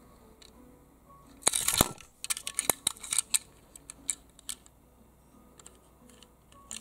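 Handling noise of a small die-cast metal toy car being turned in the fingers: a short, louder rustling scrape about a second and a half in, then a cluster of light clicks and taps, with scattered single clicks after.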